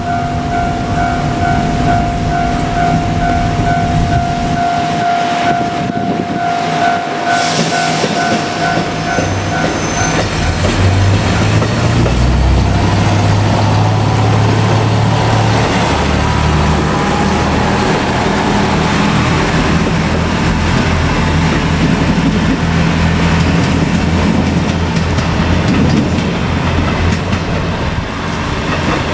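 Japanese level-crossing warning bell pulsing with a steady two-tone ring, which stops about ten seconds in as a JR Kyushu KiHa 200 diesel railcar arrives. The railcar's diesel engine runs and its wheels rumble along the rails as it passes over the crossing.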